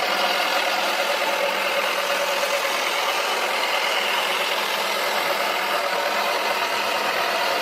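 Toy washing machine's small electric motor whirring steadily as it spins a rugby ball around in its drum.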